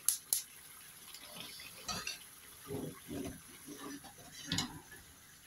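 A few light clanks and scrapes of cookware on a gas stove: about two seconds in, again around three seconds, and near the end, as a steel pot is lifted off and an aluminium wok of chicken curry is shifted on the burner.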